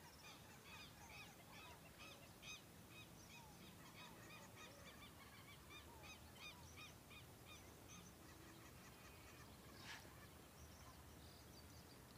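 A flock of ducks calling at a distance: faint, short high whistling calls repeated several times a second, thinning out after about eight seconds. One faint sharp snap about ten seconds in.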